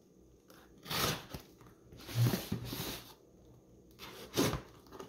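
Pocket knife slitting the packing tape along a cardboard box's seam: three short scraping, tearing strokes, about a second in, around two to three seconds in, and near the end.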